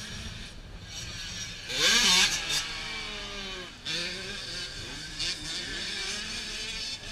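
Several motocross dirt bikes racing around a track, their engines revving up and falling away with the throttle and gear changes. The loudest burst comes about two seconds in.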